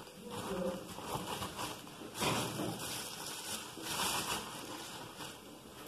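Soft, irregular rustling and handling noises close by, with louder bursts about two and four seconds in, and a faint voice near the start.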